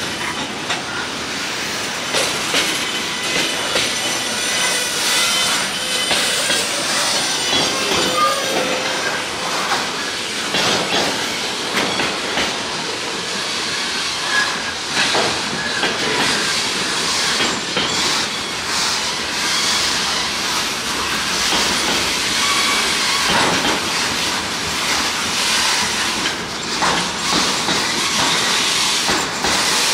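Freight cars of a local train rolling past, their steel wheels clicking over rail joints, with brief high wheel squeals now and then.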